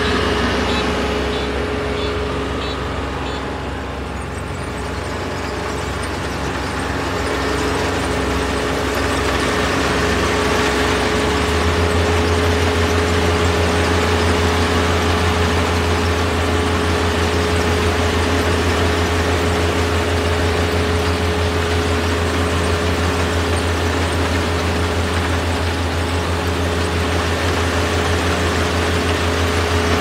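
Kubota DR472 combine harvester's 72-horsepower diesel engine running steadily, with a steady whine over the low drone. The sound dips slightly a few seconds in, then the low drone grows stronger about eleven seconds in.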